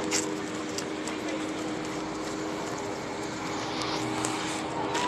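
Street traffic: a steady rush of vehicles with a low, even hum underneath, and a few faint clicks.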